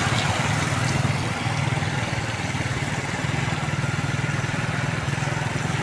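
A small engine running steadily, with an even hiss over it.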